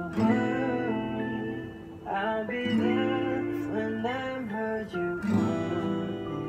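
Acoustic guitar with a capo played in chords along with a recorded song, a sung vocal line gliding over it.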